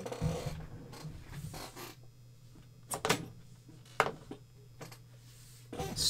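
Handling of the heavy magnets from a concealed magnetic door catch: rubbing and scraping, then two sharp clicks about a second apart.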